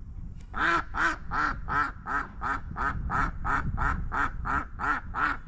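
Domestic duck quacking in a steady run of about fourteen quacks, roughly three a second.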